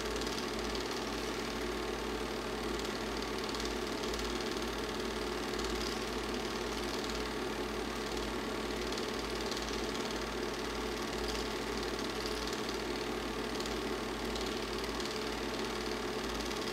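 Steady whir and clatter of a Super 8 film projector's mechanism running, with a fluttering low rumble under it.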